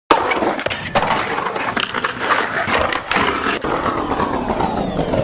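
Skateboard riding: a loud rush of wheels rolling with several sharp clacks of the board. Over the last second or two the sound grows steadily duller, its high end fading.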